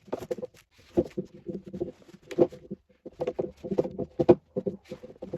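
Hard plastic shoe-rack panels and connectors clattering, with irregular knocks and clicks as they are handled and pressed together.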